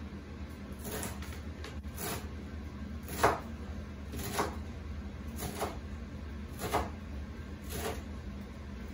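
Kitchen knife chopping through leafy greens onto a cutting board, about one cut a second, with a steady low hum underneath.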